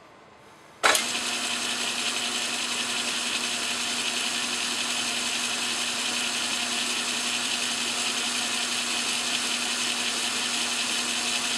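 Craftsman Atlas metal lathe running steadily with an aluminium bar turning in the chuck: a steady hum with a hiss over it, starting abruptly about a second in.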